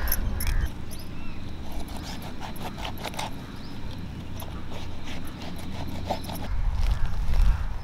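Large curved blade working through the thick, knobbly rind of a whole jackfruit, giving scattered crunching knocks as it is pushed and levered along the cut. A low rumble runs under it at the start and again near the end.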